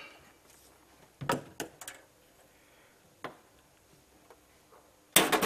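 Handling clicks and knocks from the hard plastic case of an insulation resistance tester and its test leads: a few short sharp clicks, then a louder knock near the end.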